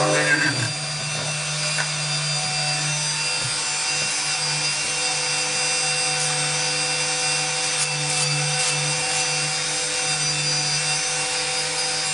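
Dremel rotary tool running with a steady whine as it grinds down a dog's claws. The whine shifts and gets a little quieter about half a second in.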